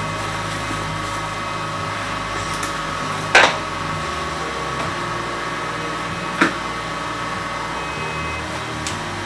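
Steady whirring hum with a faint high whine, broken by two sharp knocks about three seconds apart, the first the louder: things knocked against a desk as a person works at it.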